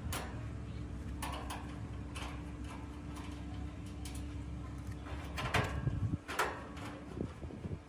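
Screwdriver working the screws on an air-conditioner condenser's sheet-metal top panel: scattered metallic clicks and scrapes, louder around five and a half to six and a half seconds in, over a steady low hum.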